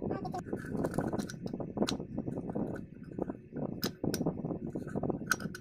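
A steel open-ended spanner clinking and knocking against the nut and metal shaft of an old Usha ceiling fan as it is fitted on, with a handful of sharp, irregular clicks over a low handling rustle.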